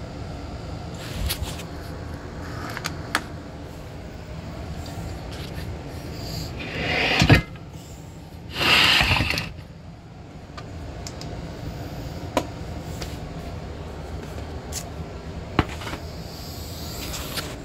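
Workshop handling noise over a steady low background hum: scattered clicks and knocks as the phone camera and papers are moved, and two loud rushing bursts of about a second each, close together near the middle.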